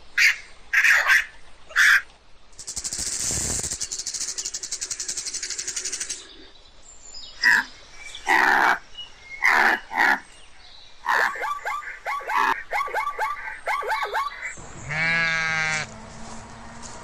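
A string of animal calls: short repeated chirps, a fast buzzing for about three seconds, more chirps and a rapid chattering run, then a sheep bleating once near the end.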